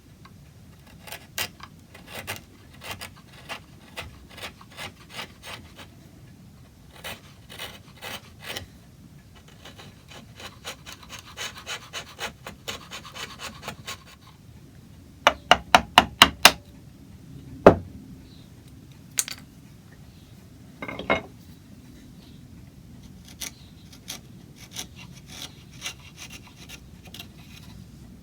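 Hand tool scraping and rubbing on the wood of a clock plinth in short strokes, quickening into a fast run of strokes, with about six sharp taps in quick succession around the middle and a few single knocks after.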